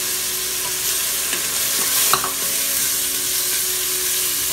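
Chopped onions, garlic and whole spices sizzling in hot oil in an aluminium pot while a plastic spatula stirs and scrapes them against the metal, with a sharper scrape about two seconds in. Ground spices have just gone in with the frying aromatics.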